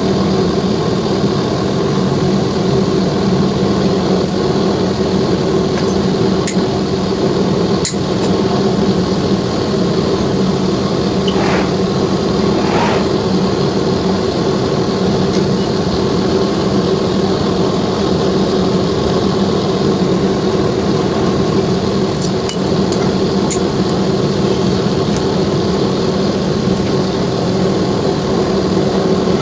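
A steady mechanical hum, with a few light metallic clinks about a quarter of the way in and again near the end.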